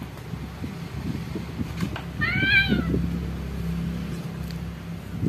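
Domestic cat letting out one high, arched meow about two seconds in, during a rough play-fight with another cat, over the scuffling of the two cats grappling.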